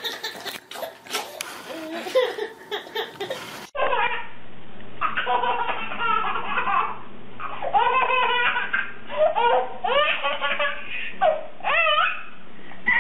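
Babies laughing: a toddler's belly laughs, then after an abrupt change a little under four seconds in, a baby's repeated high-pitched laughing squeals in short bursts.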